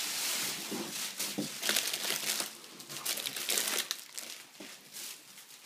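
Plastic bags and food packaging crinkling and rustling as groceries are handled, densest in the first couple of seconds and then more scattered.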